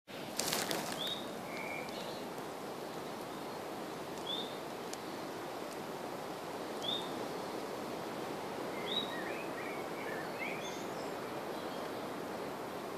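A small bird calling outdoors: a short high chirp repeated about every three seconds, then a quick flurry of several chirps about three quarters of the way through, over a steady background hiss. A brief handling bump comes at the very start.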